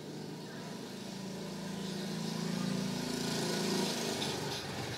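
A motor vehicle's engine passing by, growing louder to a peak about three to four seconds in, then fading a little.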